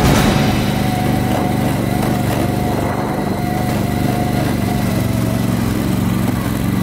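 Six-wheel Argo amphibious ATV's engine running steadily as the vehicle drives along, heard from aboard.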